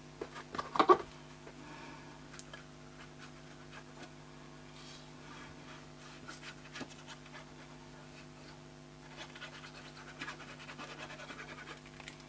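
Sheets of card stock and designer paper being handled, rustling, then liquid glue applied from the tip of a squeeze bottle, scratching and rubbing against the back of the paper, busiest near the end. A faint steady electrical hum lies underneath.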